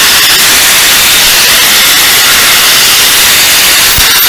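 Metabo W 650-125 125 mm, 650 W angle grinder switched on and free-running with no load: a loud, steady whirring hiss from its motor and helical-gear head.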